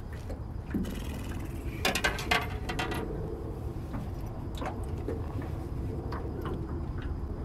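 Fishing reel ratcheting: a brief hiss, then a quick run of sharp clicks about two seconds in, with a few single clicks later, over a steady low hum.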